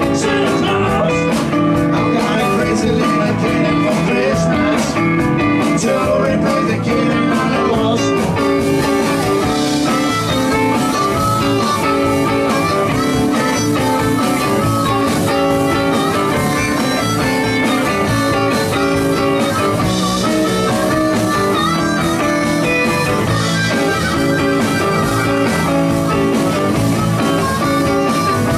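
Live blues-rock band playing an instrumental passage: two electric guitars and a drum kit, with a harmonica played into the vocal microphone.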